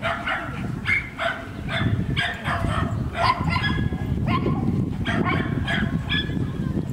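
A dog barking repeatedly, about two short barks a second, over steady low background noise.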